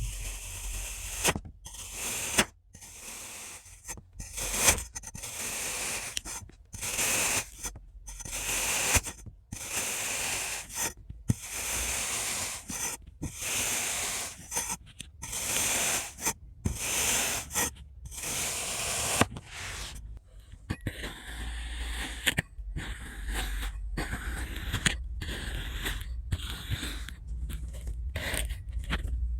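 Knife cutting through crunchy kinetic sand: a run of gritty crunching scrapes, each cut off abruptly before the next begins. After about twenty seconds the strokes come shorter and quicker over a low hum.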